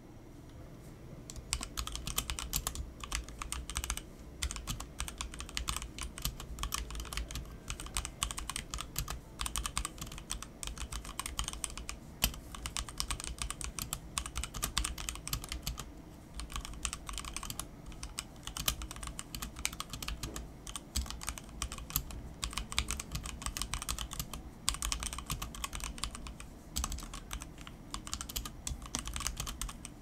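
Fast typing on a HyperX Alloy Origins 60 mechanical keyboard with HyperX Red linear switches and double-shot PBT keycaps: a dense run of key clacks that starts about a second and a half in, with a few brief pauses.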